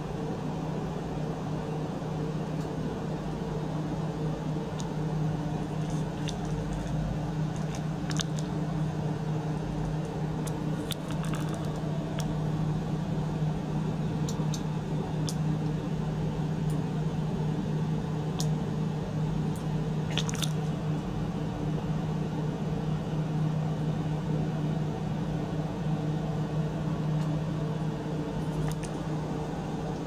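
Small circulation pump running with a steady hum, water churning through its tubing into the tank, with a few faint clicks or pops scattered through.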